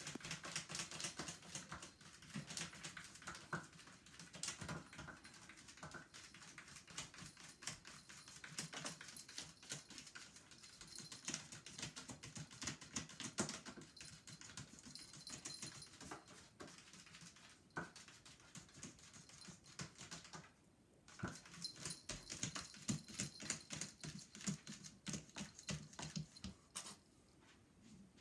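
A cat digging in cat litter inside a plastic top-entry litter box: a long run of quick, gritty scratches, with a short pause about twenty seconds in.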